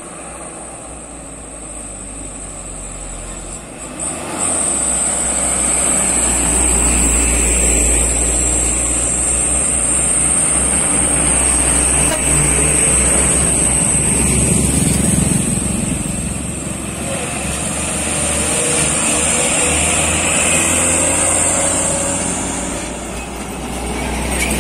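Heavy diesel trucks labouring up a hill one after another, their engines growing louder about four seconds in and rising and falling as each one passes close by.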